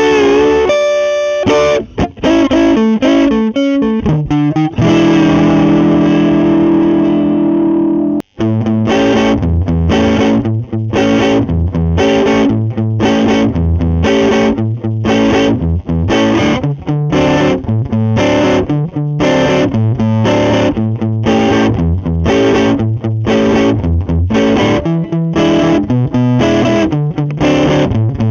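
Electric guitar with a neck humbucker, played through a Lovepedal Blackface Deluxe overdrive pedal for a Fender blackface-style crunch. A chord is left ringing, then after a brief break a rhythmic pattern of overdriven chord strums begins and keeps a steady pulse.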